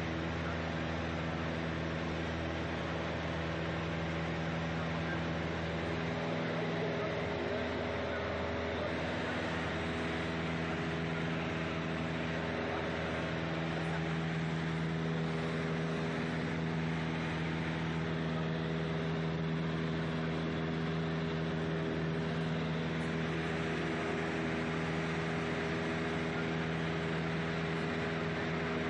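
Piper PA-28-180 Archer's four-cylinder Lycoming engine and propeller droning steadily in cruise, heard from inside the cabin.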